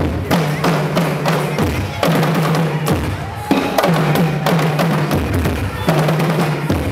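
Live ensemble of Congolese hand drums, a tall standing drum and slung drums, played with bare hands in a fast, dense rhythm. A low repeating bass pattern that changes pitch about once a second sits beneath the strikes.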